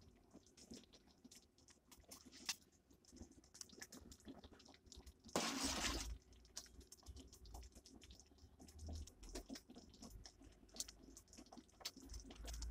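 Faint scattered clicks and small pops from a steel spoon stirring thick simmering milk kheer in a steel pot. About five and a half seconds in there is one louder rush of noise lasting under a second.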